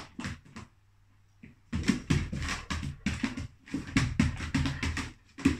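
A dog's paws and claws knocking and scrabbling on the lid of a hollow plastic storage box. There is a quiet gap at first, then a quick, uneven run of knocks from about two seconds in.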